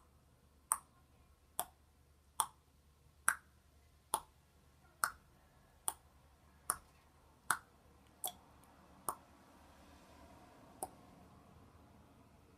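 A regular series of sharp clicks, about one a second, a dozen in a row, then a pause and one more click near the end.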